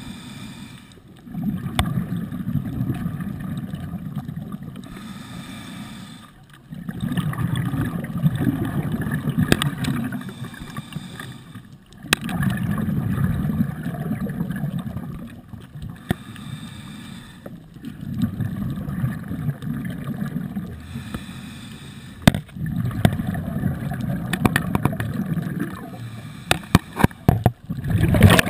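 Scuba breathing heard underwater through the diver's regulator: five bubbly rumbles of exhaled air, one every five to six seconds, with quieter inhalations between them. Scattered sharp clicks run through it.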